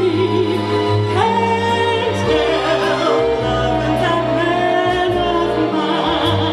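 A woman singing solo in a classically trained voice, holding long notes with vibrato over musical accompaniment.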